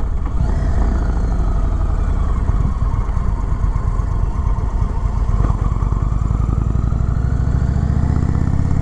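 V-twin engine of a 2021 Indian Chief Springfield Dark Horse motorcycle running through a slow corner. The engine pitch sinks over the first few seconds as the bike slows, then climbs again near the end as it pulls away.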